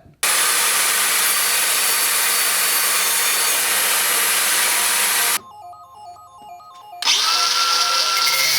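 A power tool working scrap wood runs for about five seconds and cuts out. It starts again about a second and a half later, this time with a steady whine. Quiet background music shows through in the gap.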